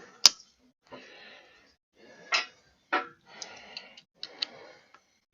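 Metal tool clicking and scraping against the retaining ring in the groove of a log splitter's hydraulic cylinder as it is pried at, with one sharp click a quarter second in and several short scrapes and smaller ticks after it.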